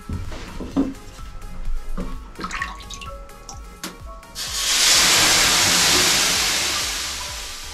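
Water thrown onto the hot stones of a Harvia electric sauna heater, flashing to steam: a loud hiss starts about four seconds in and slowly dies away.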